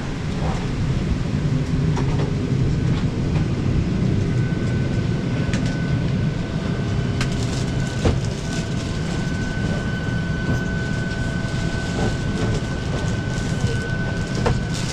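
Steady hum of a Boeing 737-800's cabin air conditioning while parked at the gate, with a thin steady whine from about four seconds in until near the end. A few sharp knocks of luggage and overhead bins stand out.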